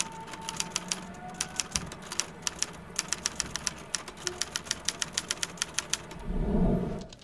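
Typewriter keys clacking in quick, uneven runs of a few strikes a second, as a sound effect. A loud low boom swells up near the end.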